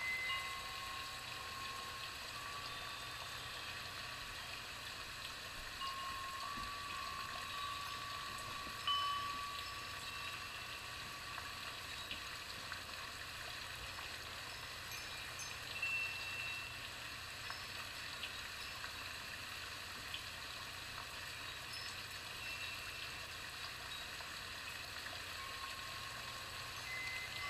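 Steady hiss, with a few faint, brief tones now and then and a couple of small knocks.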